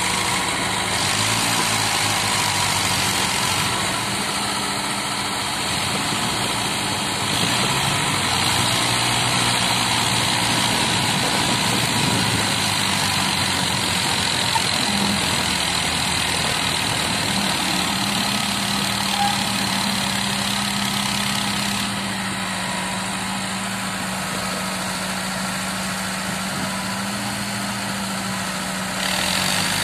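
Steady diesel engine noise from a Hitachi UH025 hydraulic excavator digging soil and loading it into a tractor's trailer, with the tractor's engine idling beside it.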